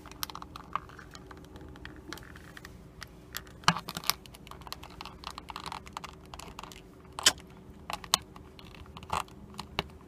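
Small plastic parts and gears of an alarm clock's movement clicking and tapping as they are pried and pulled out by hand, with sharper clicks a little under 4 s, a little over 7 s and about 9 s in.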